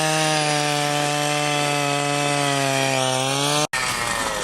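Power ice auger running steadily while drilling a hole through river ice, its pitch sagging a little about three seconds in. It cuts off abruptly near the end.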